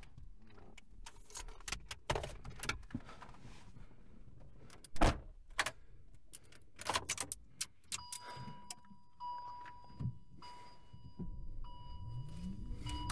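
Clicks, rattles and knocks of a person handling keys and controls inside a Fiat 500e electric car, the loudest a thump about five seconds in. From about eight seconds in, a high warning chime beeps on and off. Near the end, the electric drive motor's whine rises in pitch as the car pulls away.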